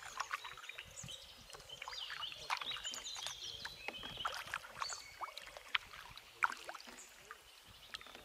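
Canoe being paddled: paddle strokes with water splashing and dripping off the blade in many small clicks, and some high chirps in the middle.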